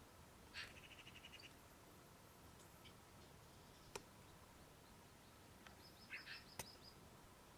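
Near silence with faint distant chirps and a short rapid trill about half a second in, another cluster of chirps near the end, and two brief sharp clicks.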